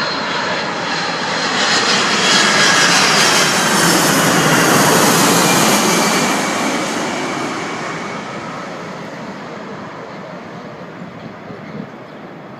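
Jet engines of a Boeing 767-300ER on its landing approach. The sound swells to its loudest a couple of seconds in, holds, then fades slowly as the airliner passes, with a high engine whine over the rushing noise.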